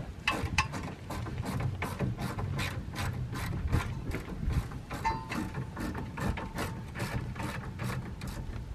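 Ratchet wrench turning a bolt, clicking in steady strokes of about three clicks a second.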